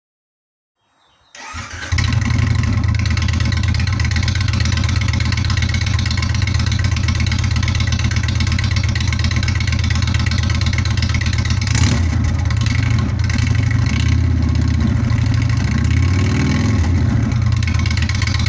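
Indian Springfield V-twin motorcycle on Rinehart Racing exhaust starting up: a brief crank about a second in, then it catches and idles with a deep, lumpy beat. Its pitch rises and falls slightly a few seconds before the end.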